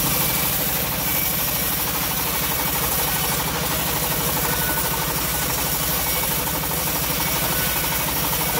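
Homemade bandsaw sawmill running steadily, with an even, rhythmic low pulsing from its drive, as a teak beam is fed along the band blade.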